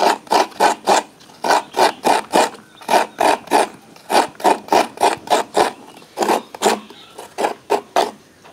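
Half a fresh coconut scraped against the serrated blade of a floor-mounted coconut scraper: a quick run of rasping strokes, about three a second, with a couple of brief pauses.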